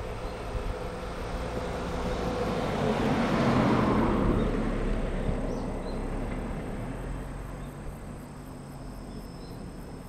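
A vehicle passing by: a broad road noise that swells to its loudest about three and a half seconds in, then fades away.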